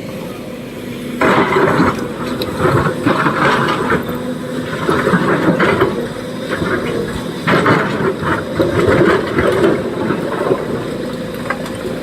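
SANY SY225 excavator's diesel engine running steadily under work, with several bursts of harsh scraping and clattering noise.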